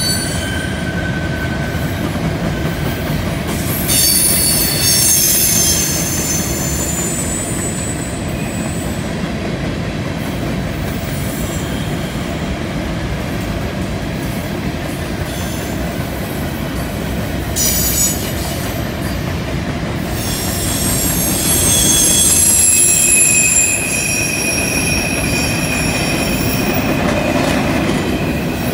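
Covered hopper cars of a CN freight train rolling by on a curve: a steady rumble of steel wheels on rail, with high-pitched wheel squeal from the curve coming and going several times.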